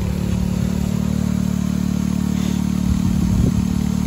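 Small gas engine of a Harbor Freight 1-inch water pump running steadily, pumping water out through a proportioner manifold and an open 3/4-inch hose.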